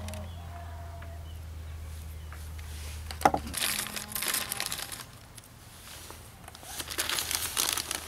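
Small clear plastic bag crinkling and rustling in two spells while an RJ45 plug is taken out of it, after a single sharp click about three seconds in.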